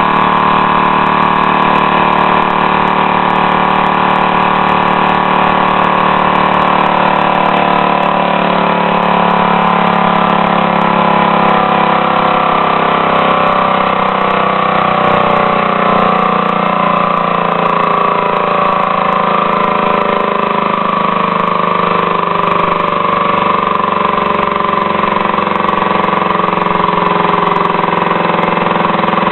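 Small leaf blower engine converted to a compressed-air motor, running continuously on compressed air fed through a timed air valve. Its pitch holds steady at first, then wavers up and down from about halfway on as its speed drifts.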